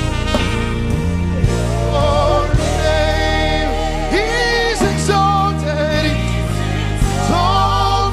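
Live gospel worship music: long, wavering sung notes over keyboard and a steady bass line.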